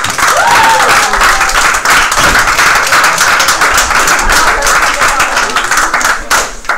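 Audience applauding, dense clapping with a short whoop near the start, dying away near the end.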